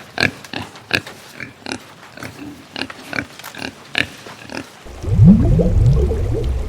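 Short, sharp animal calls repeated about three times a second. About five seconds in they give way abruptly to a louder, low-pitched sound with rising pitch sweeps.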